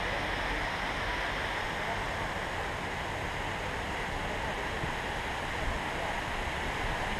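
Steady rushing of a waterfall cascade pouring over rocks, an even wash of water noise.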